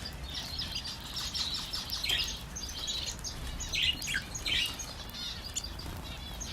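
A flock of small aviary birds chirping and chattering over one another, with many short overlapping calls and a few sharper notes that sweep quickly downward.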